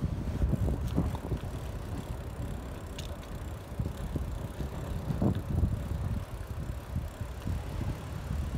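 Wheels rolling over rough, cracked asphalt and then a paved path, a steady low rumble with irregular bumps, mixed with wind buffeting the microphone.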